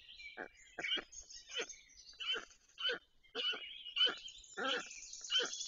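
Black storks at the nest giving short calls in a steady series, about two a second, with a high hiss joining in near the end.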